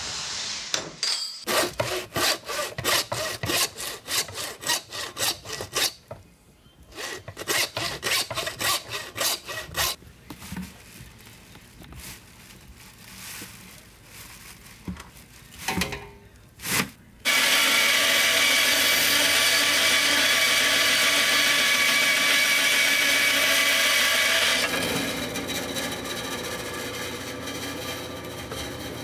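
Hand sawing, quick back-and-forth strokes at about three a second for several seconds, then a few scattered scraping strokes. Then a loud steady machine noise starts suddenly and runs for about seven seconds before dropping to a quieter steady hiss.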